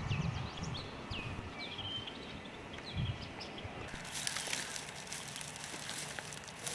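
Small birds chirping with short, falling calls. About four seconds in, this gives way to a dense dry crackling and rustling of footsteps over flattened dry reeds, with a plastic trash bag carried along.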